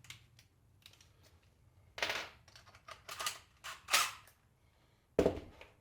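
Hard clacks and knocks of tools and pieces being handled on a workbench: a handful of sharp clacks, the loudest about four seconds in, then a duller, heavier knock near the end.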